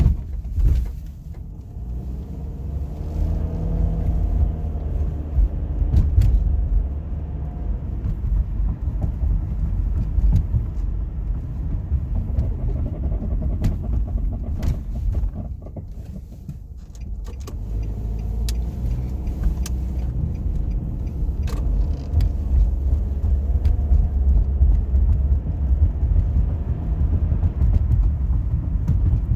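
Front-wheel-drive car on the move: steady low road and engine rumble that dips twice.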